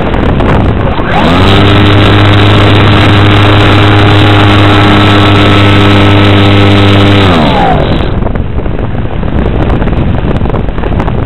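Motor and propeller of an Ixir flying-wing model airplane, heard from its onboard camera over steady wind rush. About a second in the motor spins up to a steady drone, holds for about six seconds, then spins down, leaving only the wind rush.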